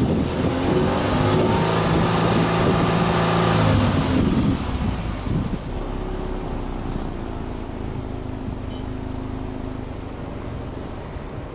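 Subaru Impreza WRX STI hatchback's turbocharged flat-four boxer engine, heard at its quad exhaust tailpipes. It is held at steady raised revs, then drops back about four seconds in and settles to a steady idle.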